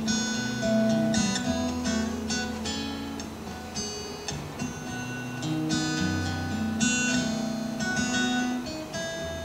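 Solo steel-string acoustic guitar playing an instrumental passage of a slow country song, single picked notes over sustained bass notes.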